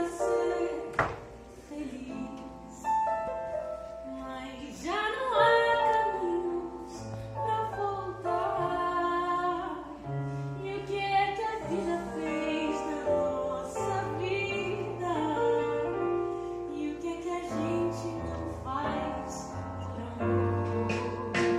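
A woman singing a slow melody over instrumental accompaniment with sustained bass notes.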